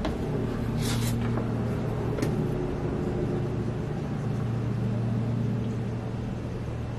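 Steady low mechanical hum, as from a motor or fan running, with two brief light scrapes about one and two seconds in.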